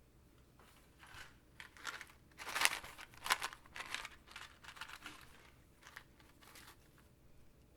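Close-up crinkling and crumpling: irregular crackles and rustles, loudest around the middle and tapering off toward the end.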